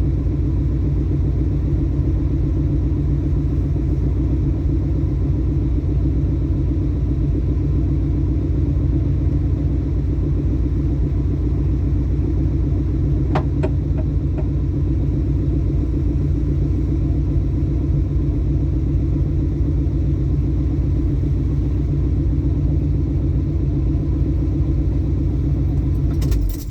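Ford Mustang Mach 1's V8 running steadily with a low rumble, with a few light clicks about halfway through. The engine cuts off suddenly near the end.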